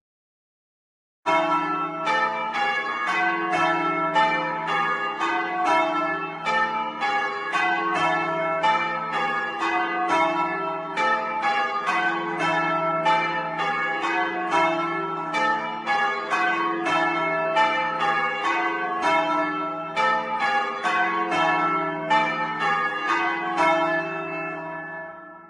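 Heavy church bells of a ring of four, hung for change ringing, rung full-circle and heard close up in the belfry. Their strikes follow one another in a steady, even sequence, starting suddenly about a second in. Near the end the strikes stop and the bells' deep hum dies away.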